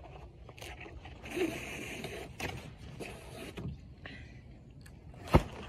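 Cardboard shipping box being handled as a wrapped poster is pulled up out of it: rustling and scraping of cardboard and wrapping, with one sharp knock near the end.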